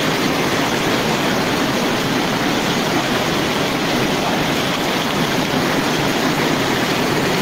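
Flash-flood torrent of muddy water rushing down a street, a loud, steady rushing noise.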